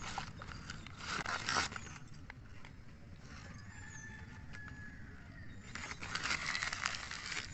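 Newspaper wrapping rustling and crinkling as miniature terracotta pots are unwrapped, in two bursts, one about a second in and one near the end, with a few light clay knocks between as the small pots are set down.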